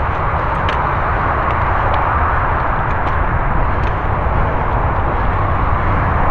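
Mountain bike riding along a dirt forest trail, heard from a camera on the bike or rider: a steady, loud noise of tyres on the trail and wind on the microphone, with a few light clicks and rattles from the bike.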